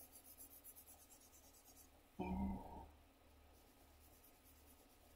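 Pencil scratching on sketchbook paper in quick, faint, rhythmic strokes. A short, louder low sound comes about two seconds in.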